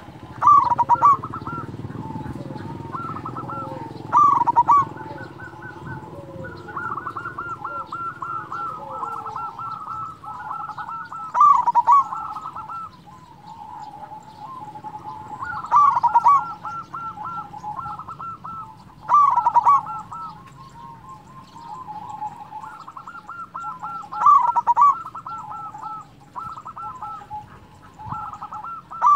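Zebra dove (perkutut) singing: runs of quick stuttering cooing notes, each phrase ending in a louder, fuller coo, repeated every few seconds.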